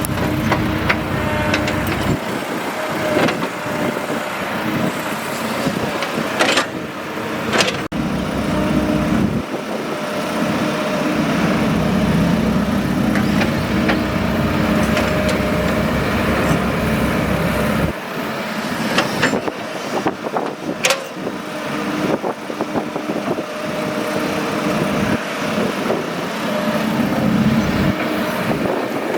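Excavator engine running, its low rumble swelling and easing back every several seconds as the machine works, with a few sharp knocks, two close together about seven seconds in and another about twenty-one seconds in.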